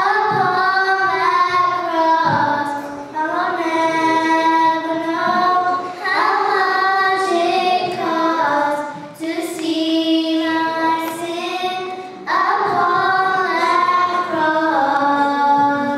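Two young girls singing a praise hymn together into microphones, in long held notes with short breaks for breath between phrases.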